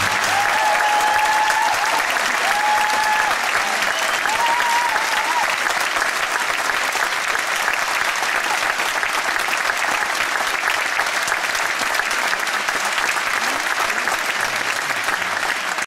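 Theatre audience applauding after a musical number, a dense steady clapping, with a few held calls from the crowd rising over it in the first five seconds.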